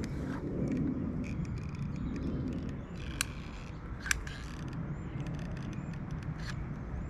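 A plastic RV skylight being handled and set down into place on the roof, with rustling, knocks and two sharp clicks about three and four seconds in, over a steady low outdoor rumble.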